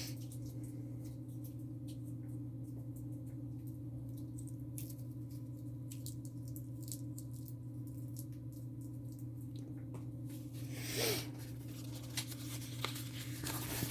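Steady low electrical hum in a small room, with faint scattered clicks and light handling rustles, and a brief louder rustle about eleven seconds in.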